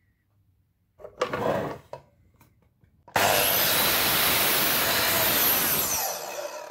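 Electric mitre saw cutting through a timber board. A short burst of motor sound comes about a second in; then the saw starts again and runs loud and steady through the cut for about three seconds, easing off near the end as the cut finishes.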